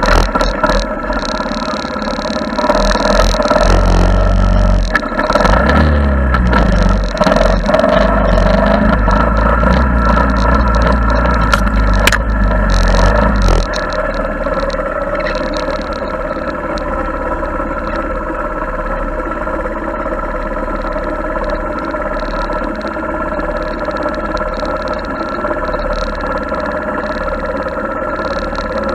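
Honda ATC70 three-wheeler's small single-cylinder four-stroke engine running steadily under way. A heavy low rumble sits under it for the first half and drops away about halfway through, leaving the engine's steady note.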